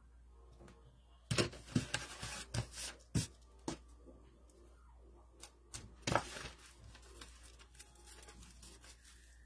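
Hands handling craft supplies on a work table: a quick run of rustles and clicks from about a second in to nearly four seconds, then two more a little past the middle, over a steady low hum.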